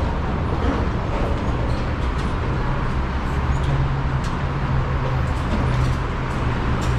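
Steady rumble of vehicle noise, with a low hum that comes up more strongly about two and a half seconds in.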